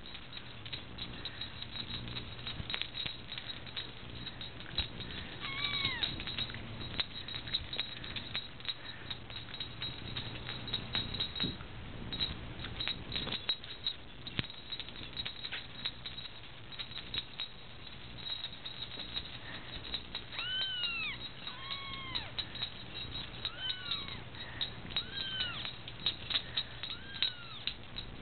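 Young Persian kittens mewing: high, thin cries that rise and fall, one about six seconds in and a run of them in the last third. Frequent small clicks and rustles of the kittens crawling on a blanket sound underneath.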